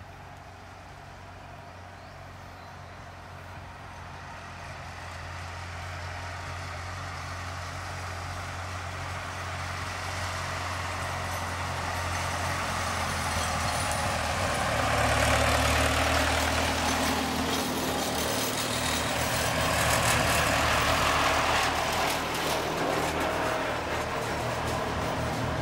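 Antique farm tractor engines running as the tractors approach along the road and pass by one after another, growing louder, loudest about fifteen and twenty seconds in.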